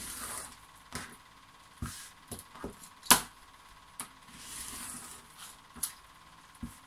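Rotary cutter slicing through fabric along an acrylic ruler on a cutting mat: soft swishing cuts, with a series of light clicks and knocks as the ruler and fabric are moved on the mat, the sharpest knock about three seconds in.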